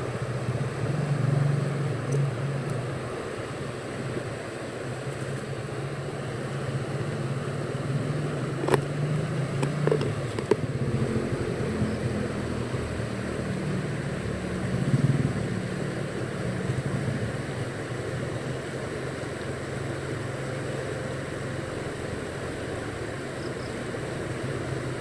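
A steady low motor drone that drifts in pitch and swells about fifteen seconds in, over the even rush of flowing river water, with a few sharp clicks near the middle.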